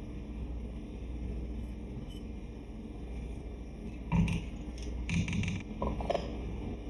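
A few short knocks and clatters, as of objects being handled and set down, over a steady low hum.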